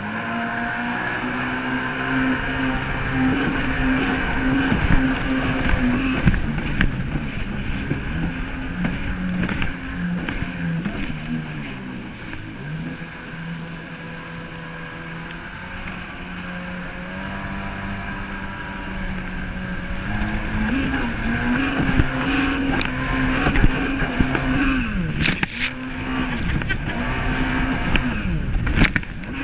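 Kawasaki jet ski engine running under way, its pitch falling as the throttle is eased about twelve seconds in and again near the end, then climbing back, over the rush of water spray off the hull.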